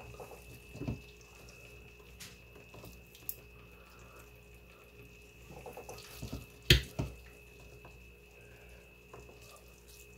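Metal tongs lifting wet shredded beef out of its cooking juices and laying it on a tortilla: soft wet squelches and drips, with two sharp clicks of the tongs about two-thirds of the way through, over a faint steady high whine.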